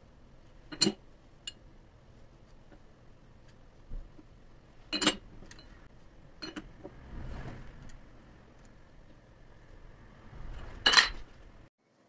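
Sharp metallic clinks of steel parts knocking together as a lathe's three-jaw chuck holding a square bar is turned by hand against a dial indicator: four clinks, the first and last loudest, with soft handling rustle between.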